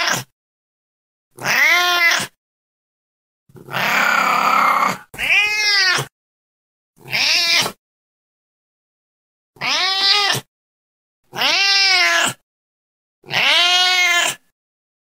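A domestic cat meowing over and over: about seven separate meows, each rising and then falling in pitch, with silent gaps between them. About four seconds in, one cry is longer, harsher and rougher.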